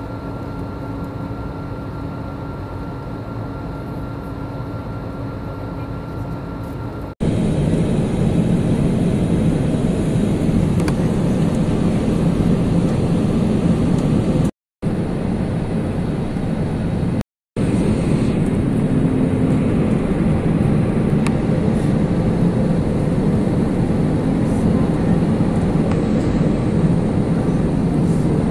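Steady noise of an airliner's turbofan engines and rushing air, heard from inside the cabin. About seven seconds in it jumps to a louder, deeper rush, and it cuts out briefly twice near the middle.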